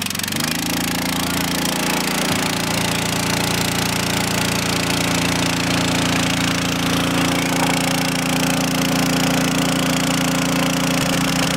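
Small gasoline engine of a portable water pump running steadily at constant speed, pumping water through a hose into a drill boat to simulate a boat taking on water.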